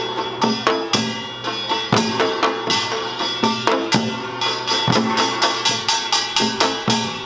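Korean samul nori percussion ensemble in the Yeongnam style: small kkwaenggwari gongs clanging over janggu hourglass drums and buk barrel drums in a fast, steady rhythm with a strong accent about once a second.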